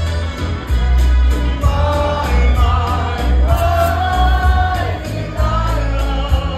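A singer singing long held notes into a handheld microphone over loud backing music with heavy bass and a steady beat.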